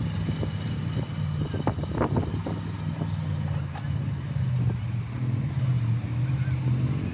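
Six-wheeled Ural military truck's engine running at low revs as it crawls over a sandy crest, its pitch dipping about halfway through and rising again near the end.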